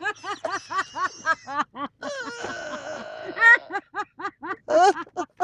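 A person laughing hard: a long run of short, repeated "ha" bursts, about three to four a second, with a breathy wheeze of about a second in the middle.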